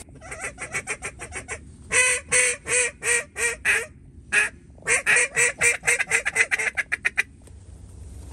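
Duck call being blown to bring ducks in: a quick run of short quacks, then several long, loud quacks, then a long run of quacks that gets faster and softer and stops about a second before the end.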